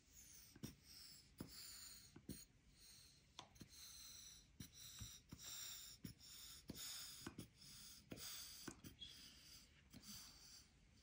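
Faint, irregular sticky clicks and crackles of nano gel tape being pulled apart and stretched into a bubble.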